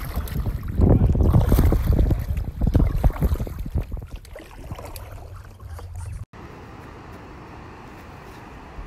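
Gusty wind buffeting the microphone on a small boat on a river, loud and rumbling. About six seconds in it cuts off sharply to a steady, quieter wash of ocean surf on a beach.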